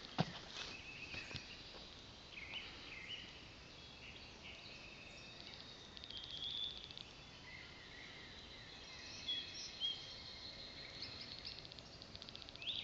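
Woodland birds chirping and calling, with short high notes and a quick trill about halfway through, over a faint steady outdoor background; a short knock right at the start.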